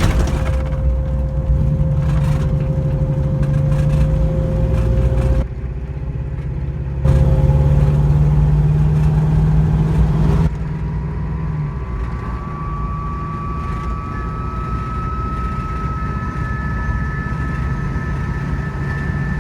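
1991 Ford Bronco driving, a steady drivetrain and road hum with a higher whine that comes in about twelve seconds in. The noise is there in every gear and in neutral, in 2wd and 4wd, but not with the wheels on jackstands, which ties it to the truck rolling under its own weight rather than to the engine.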